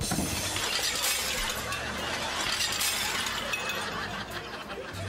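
Crockery and glass smashing and clattering as a café table is dragged over by its tablecloth. The crash starts suddenly, and the shattering and rattling run on for about three seconds before dying away.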